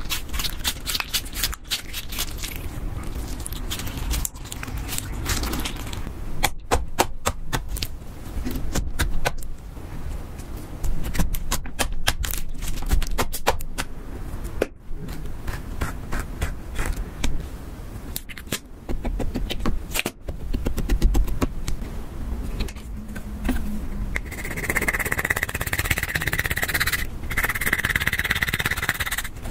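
Clear slime squeezed and kneaded by hand, giving a run of wet clicks and pops. In the last few seconds, pressed eyeshadow is scraped and crumbled in its pan with a tool, making a steady gritty scratching.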